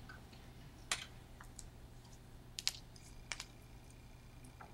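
Faint, scattered short clicks, about seven in all, the sharpest about a second in and twice just past midway, over a low steady hum of room tone.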